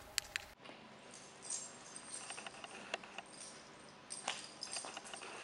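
Dog collar tags jingling and rattling faintly as leashed dogs walk about, with two sharp clicks just after the start.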